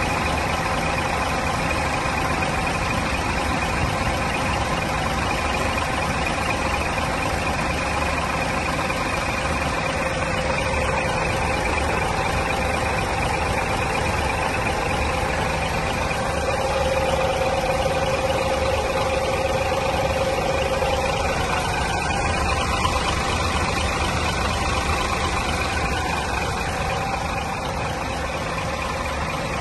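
Scania diesel engine in the rear engine bay of a New Century coach, running steadily at idle, heard close up through the open engine hatch.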